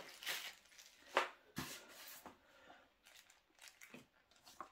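Small plastic bag of battery terminal bolts crinkling and rustling in the hand, a few short crinkles in the first couple of seconds with the sharpest about a second in, then faint light handling of a printed card.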